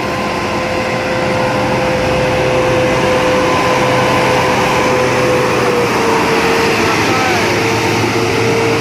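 Intercity bus diesel engine pulling hard up a steep grade in a low gear, a loud steady roar with a sustained whine whose pitch dips slightly about six seconds in.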